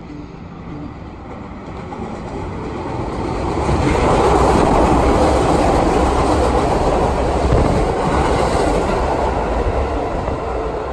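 A train running past a station platform, growing louder over the first four seconds as it approaches and then staying loud as the cars go by.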